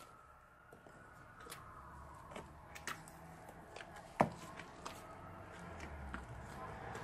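Foamy slime being stirred and folded with a plastic spoon: many small sticky clicks and bubble pops, with one louder pop about four seconds in.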